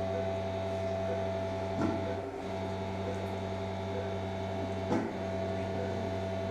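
Steady electrical hum from operating-room equipment, with a faint knock about every three seconds.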